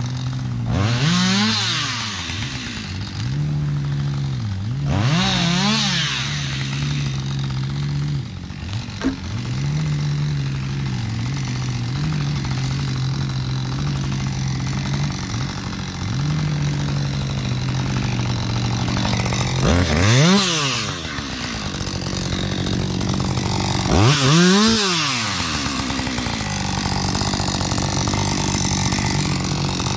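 Chainsaw engine idling steadily, revved up and let back down to idle four times.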